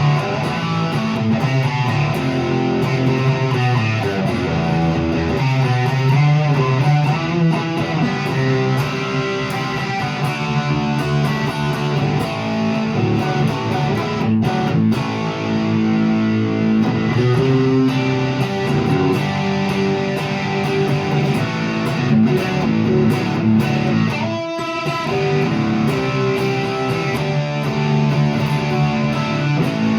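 Electric guitar, a 1989 Fender HM Strat, played continuously through a Peavey Classic 50 amplifier into a Marshall 1965A 4x10 speaker cabinet, with a short break about 24 seconds in.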